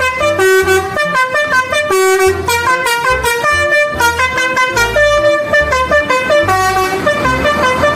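Toy telolet bus's electronic horn playing a quick multi-note tune, one horn-like note after another.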